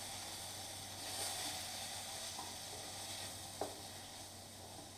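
Chopped tomato sizzling in hot oil with fried onion and spices, a steady hiss, with a single light click about three and a half seconds in.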